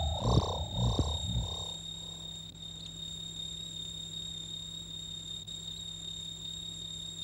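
Electronic soundtrack: a warbling synthesized tone over low pulsing beats fades out in the first two seconds, leaving a steady hum with a thin high whine.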